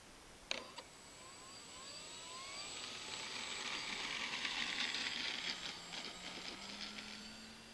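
Electric motor and propeller of a Durafly Monocoupe RC plane spinning up for take-off: a sharp click, then a rising whine with a rushing propeller noise that builds to a peak about halfway through and eases off over the last couple of seconds.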